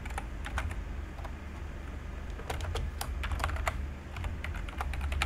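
Typing on a computer keyboard: scattered keystrokes, with a quick run of clicks in the middle.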